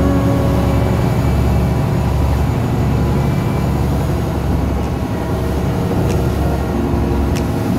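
Passenger canal boat's engine running hard under way, heavy and low, mixed with the rush of its churning wake. A couple of sharp ticks come near the end.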